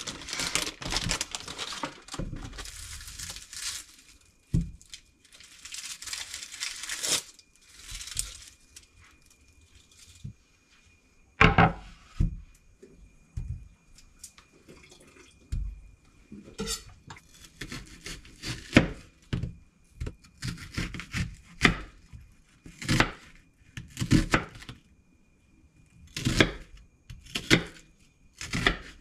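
Rustling and tearing for the first several seconds, then a knife cutting an onion on a wooden cutting board in separate strokes that come closer together near the end.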